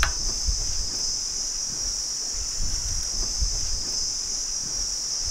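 Insects chirring steadily in a continuous high-pitched drone, with a low irregular rumble underneath.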